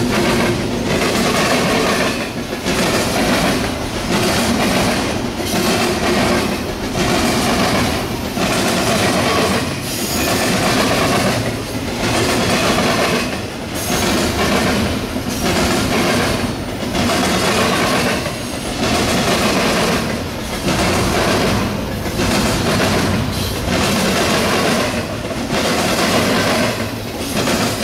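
Double-stack intermodal freight train rolling by, its wheels clattering over the diamond crossing in a steady rhythm that swells and dips about every second and a half as each car passes.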